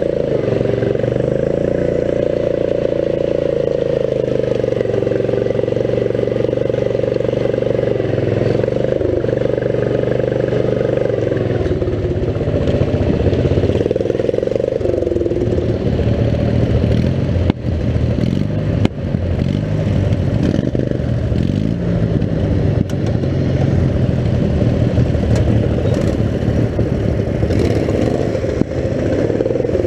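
Riding lawn mower's small engine running hard close by, its pitch steady for the first ten seconds or so, then rising and falling with the throttle over rough ground. A few sharp knocks and rattles come from the mower's body jolting on the trail about halfway through.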